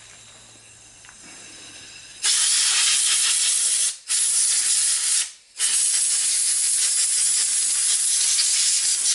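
Compressed-air blow gun blasting water off a freshly washed black-powder revolver part: a loud, even hiss starting about two seconds in, given as three blasts with two brief breaks between them.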